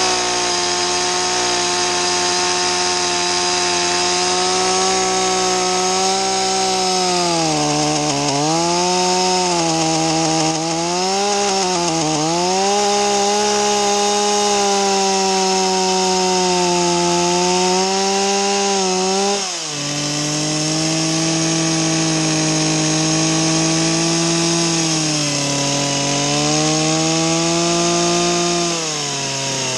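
Stihl two-stroke chainsaw running at high revs while plunge-cutting a mortise into a log. The engine pitch dips several times under load about a third of the way in, drops sharply about two-thirds through and runs on lower, then falls away near the end.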